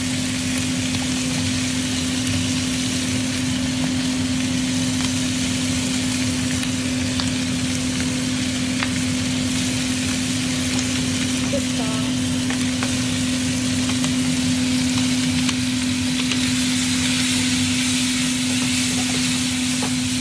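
Pieces of wild boar meat sizzling as they are stir-fried in a wok, with a few light clicks of wooden chopsticks against the pan, over a steady low hum.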